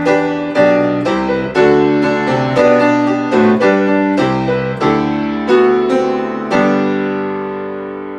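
Grand piano playing the closing phrase of a hymn in full chords, about two a second, then striking a final chord about six and a half seconds in that is held and slowly dies away.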